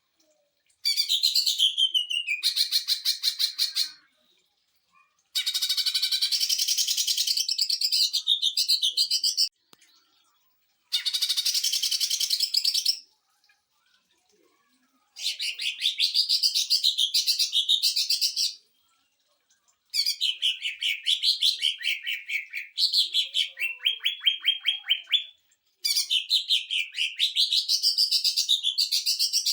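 Cucak ijo (green leafbird) singing its 'sewing machine' song: bursts of very fast, evenly repeated high notes like a machine-gun trill. There are about seven bursts, each lasting two to four seconds, with short pauses between them.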